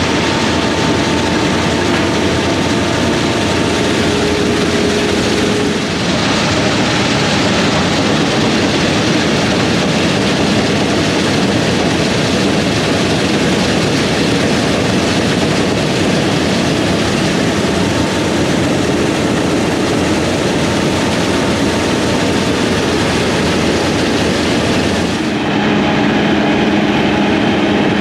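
Heavy farm machinery running in a harvest field: a loud, steady mechanical din that changes abruptly about six seconds in and again near the end.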